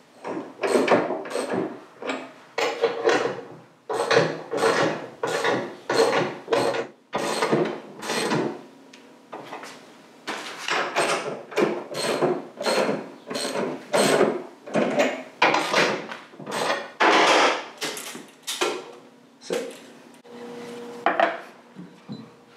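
A hand tool worked in quick repeated strokes during motorcycle front-end assembly, about two short noisy strokes a second, with a brief pause near the middle and a longer, quieter pause near the end.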